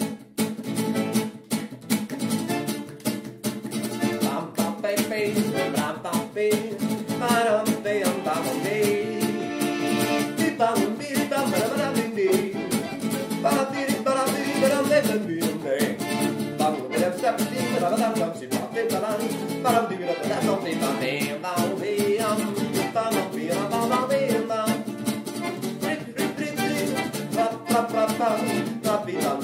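Music: a song with strummed or plucked guitar and a singing voice.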